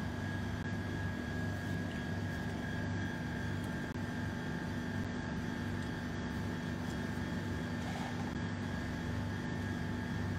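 Steady machine hum, a low drone with a constant thin whine above it and a faint regular pulsing in the low end.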